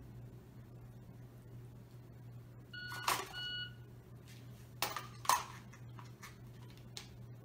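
Shot timer's electronic start beep about three seconds in, followed about half a second later by a second beep marking the 0.60 s par time. A sharp clack between the beeps as the pistol comes out of the belt holster. Two more sharp clacks of pistol handling come about two seconds later.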